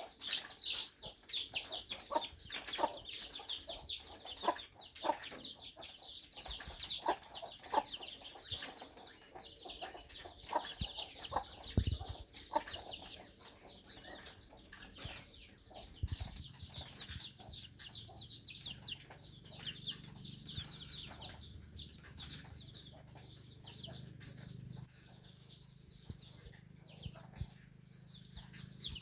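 Chickens clucking, over a constant chorus of short, high chirps. A faint low hum comes in about halfway through.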